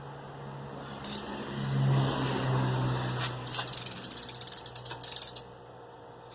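Ratchet wrench clicking rapidly as it turns the Chevy 305 V8 over by hand to find top dead centre, over a steady low hum.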